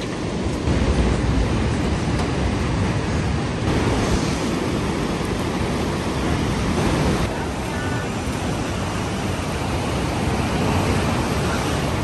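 Steady rushing of ocean surf, with wind rumbling on the microphone.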